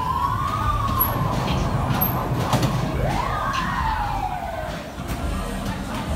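A siren wail that rises and falls twice, over the steady low rumble of a running fairground waltzer.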